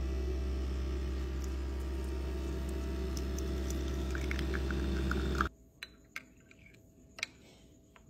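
Spinn centrifugal coffee machine running as it brews espresso into a cup: a steady low hum with liquid pouring, cutting off abruptly about five and a half seconds in. A few faint clicks follow.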